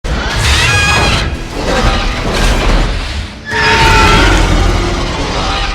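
Ion Dragon monster roar sound effect: two long screeching roars with a wavering pitch over a deep rumble. The second begins about three and a half seconds in.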